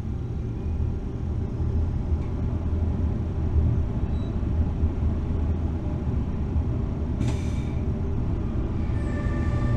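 Electric locomotive heard from inside its cab, rolling slowly over yard track with a steady low rumble. A short hiss of air comes about seven seconds in.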